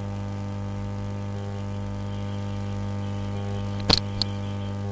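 Steady electrical mains hum and buzz on the recording, with two sharp mouse clicks close together about four seconds in.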